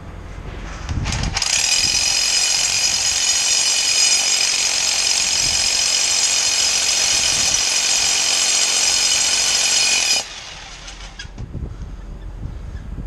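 A small motor running with a steady high whine, starting about a second in and cutting off sharply after about nine seconds.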